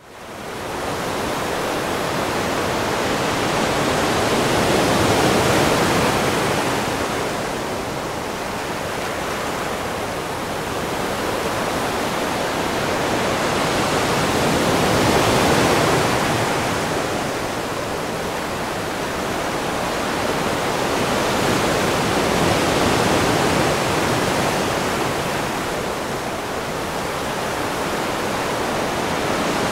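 Ocean surf on a beach: a steady wash of breaking waves that swells and fades slowly, cresting about every eight to ten seconds.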